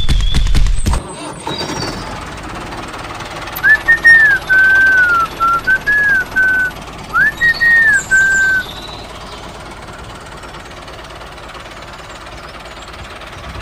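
A short whistled tune of gliding notes that arch up and down in quick phrases, lasting about five seconds. Before it, a loud low rumble with clicks stops about a second in. After it, a steady, even engine-like drone of a tractor runs on.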